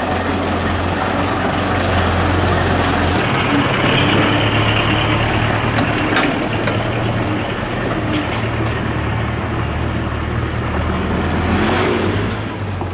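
Steyr 50 tractor's diesel engine running steadily as the tractor drives, with the engine note shifting about three seconds in.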